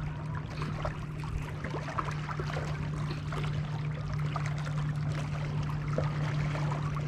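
Lake water lapping and trickling against the bank, with many small irregular splashes and crackles over a steady low hum.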